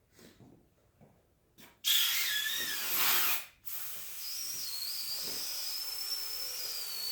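Compressed air hissing from an air compressor blow wand pushed under a red fox's skin, inflating it to separate the skin from the muscle for skinning. A loud blast starts about two seconds in and breaks off briefly, then a steadier, quieter hiss carries on with a high whistle over it.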